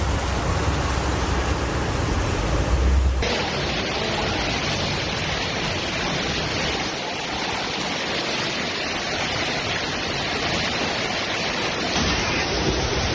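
Steady rushing noise of flowing floodwater and heavy rain, with a low rumble of wind on the microphone for the first three seconds. The sound changes abruptly about three seconds in and again near the end.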